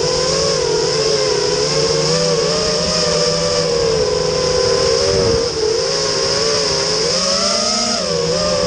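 FPV racing quadcopter's brushless motors and propellers whining, the pitch wavering up and down with the throttle, with a brief dip about five and a half seconds in.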